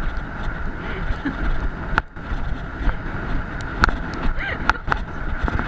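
Wind rumbling over the microphone of a camera worn by a horse rider on the move, with a few scattered muffled knocks from the ride.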